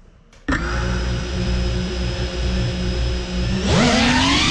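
GEPRC Cinelog 35 cinewhoop drone's brushless motors and ducted propellers spinning up suddenly about half a second in and holding a steady whine, then rising sharply in pitch near the end as the throttle is pushed up.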